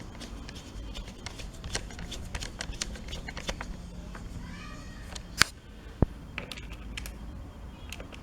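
A small screwdriver clicking and scraping against the screws of a Dell Latitude E5270 laptop's bottom cover as they are tightened, with a sharp click about five seconds in and a low knock just after.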